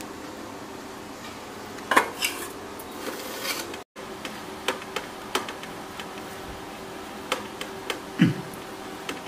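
Scattered light clinks and knocks of fingers and food against a stainless steel bowl and steel plate as potato cutlets are dipped in cornflour batter and rolled in breadcrumbs, over a faint steady hum.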